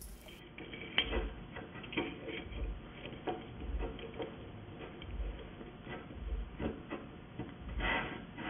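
Light metallic clicks and clinks of small steel parts being handled and an adjustable locking lever being turned, coming irregularly about once a second, with dull low knocks among them.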